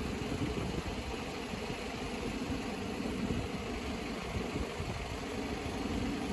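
Steady low rumble of road vehicles idling.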